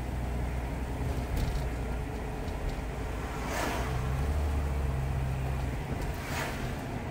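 Inside the cabin of a 1979 Ford Granada 3.0 automatic under way: a steady low drone from the engine and drivetrain over tyre hiss on a wet road, swelling a little about four seconds in. Two brief swells of hiss come about three and a half and six and a half seconds in.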